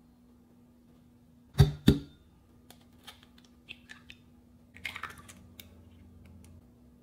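Egg rapped twice sharply on a hard edge to crack it, then light clicks and crackling of the eggshell as it is pried open over a bowl.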